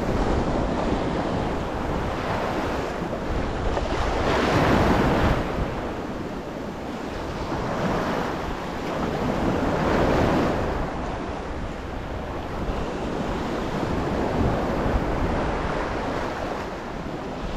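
Sea waves washing in on a rocky shore, with wind buffeting the microphone; the wash swells louder about four to five seconds in and again around ten seconds.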